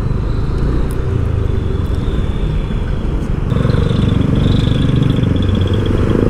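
Motor vehicle engine running with road noise, growing louder about three and a half seconds in.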